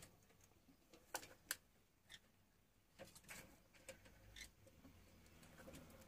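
Near silence: quiet room tone with a few faint, sharp clicks and taps scattered through it, the two clearest close together about a second and a half in.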